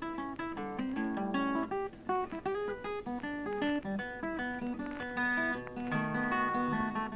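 Background music: a plucked acoustic guitar playing a run of quick notes.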